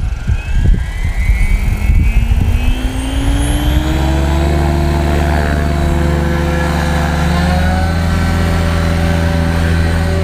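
An XL Power XL550 electric RC helicopter spooling up. Its motor and gear whine rises in pitch as the rotor head speeds up, then settles about four seconds in into a steady rotor hum as the helicopter hangs in a low hover.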